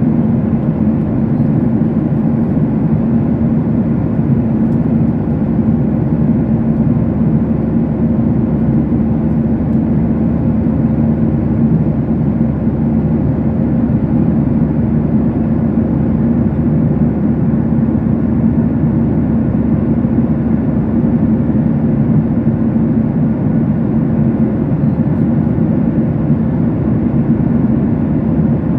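Airliner cabin noise in flight: a loud, steady rumble of engines and airflow with a steady low hum running through it.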